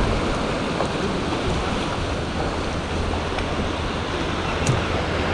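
Steady wash of surf breaking on a beach, with wind rumbling on the microphone.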